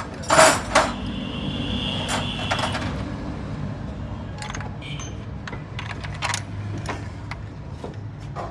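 Metal tools and parts clanking in a car workshop: two loud knocks at the start, then scattered lighter clicks over a steady low hum, with a brief high steady whine about two seconds in.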